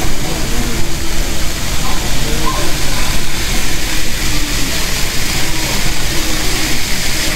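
Model Shinkansen trains running along a layout's tracks: a steady, even rolling noise, with people talking faintly in the background.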